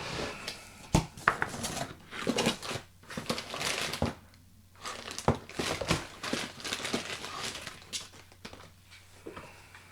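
Handling noise: irregular bursts of crinkling and rustling with several sharp knocks.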